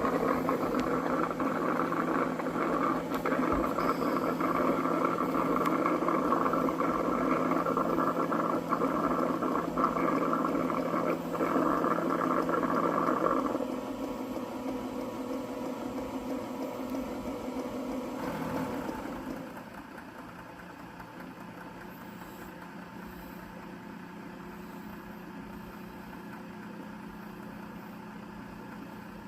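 Cuckoo robot vacuum's all-in-one docking station washing the mop pads: a steady mechanical whirr. It drops in level about 13 seconds in, then drops again about 19 seconds in to a quieter steady hum.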